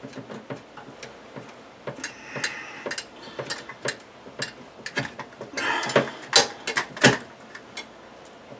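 Hands working electrical wires and a plastic wire nut at an under-cabinet LED strip light: irregular small clicks and scrapes, with two sharper clicks in the second half.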